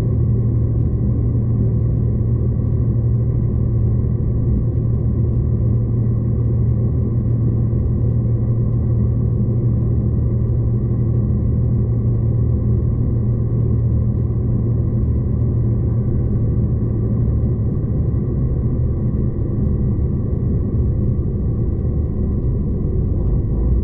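V/Line diesel train running at steady speed, heard from inside the carriage: a constant low engine hum with rumbling wheel and rail noise underneath.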